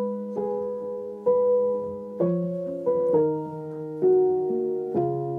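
Song intro played on piano: slow chords struck about once a second, each ringing on and fading before the next.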